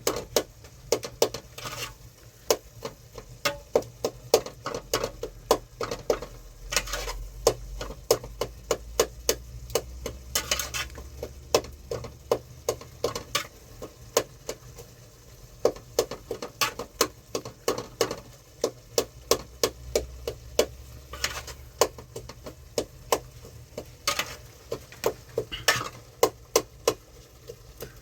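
Irregular sharp ticks and taps, two or three a second, over a faint low hum.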